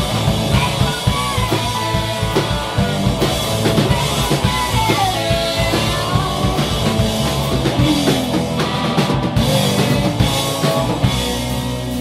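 Hard rock band playing in a rehearsal recording: drum kit, electric guitars and bass, with lead lines that glide in pitch.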